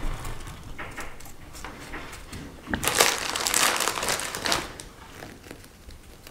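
Plastic bag of mini marshmallows crinkling as it is handled and emptied over the pie, loudest for about two seconds starting nearly three seconds in.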